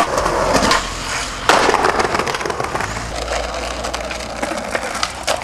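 Skateboard with a sharp board clack about a second and a half in, then the steady rumble of urethane wheels rolling over brick paving, with a few light clicks.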